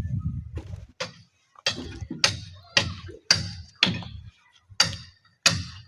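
Hammering at a building site: sharp metal-on-hard blows about two a second, starting about a second in, each with a short ring.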